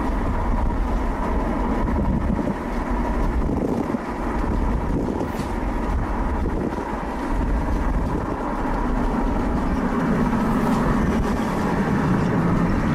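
Steady rumble of a car driving along a road: tyre, engine and wind noise.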